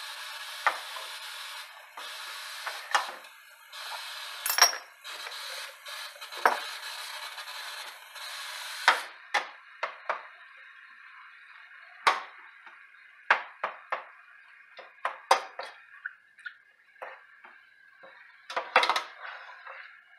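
Ground turkey sizzling in a stainless steel pot as a spatula stirs it, knocking and scraping against the pot. The sizzle is steady for about the first nine seconds and then drops away, leaving the spatula's knocks.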